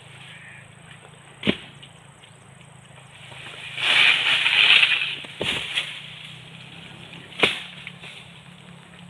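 Coconut harvesting up in a palm crown: three sharp knocks about a second and a half, five and a half and seven and a half seconds in, and a loud rustling swish of palm fronds about four seconds in.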